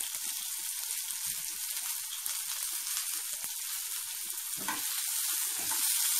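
Sliced red onion, ginger and garlic sizzling steadily in hot oil in a nonstick frying pan, with small crackles. About four and a half seconds in, a brief knock as the pan's contents are stirred.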